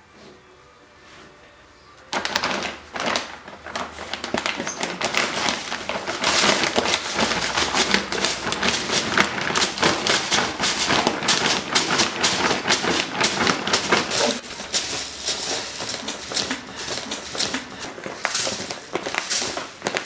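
A cat digging in an open plastic sack of cat litter: rapid scratching, crinkling plastic and rattling litter granules, starting about two seconds in.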